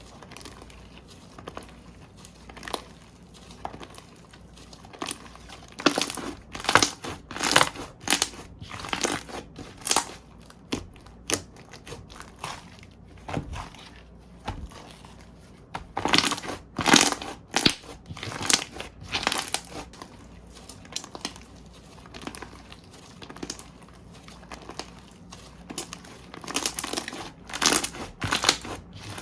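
Slime being squeezed, stretched and poked by hand, giving clusters of sticky crackling clicks and pops in three busy spells with quieter handling between.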